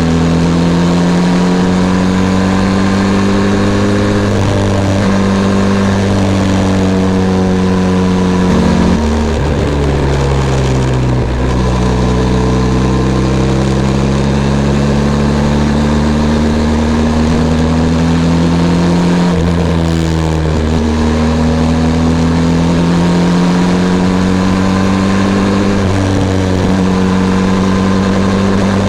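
Benelli TRK 502 X's 500 cc parallel-twin engine running under way, its pitch slowly rising and falling with throttle and dropping sharply about a third and two-thirds of the way through.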